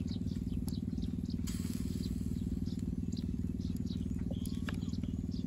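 A small engine running steadily, a low drone with a fast even pulse, with faint scattered ticks and crackles above it.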